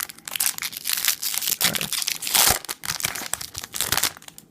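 Plastic wrapper of a Topps trading card pack being torn open and crinkled, a dense run of rustling that dies away near the end.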